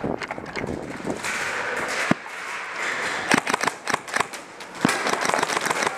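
Airsoft guns firing: sharp cracks, one on its own about two seconds in, then short quick strings a little over three seconds in and again around five seconds.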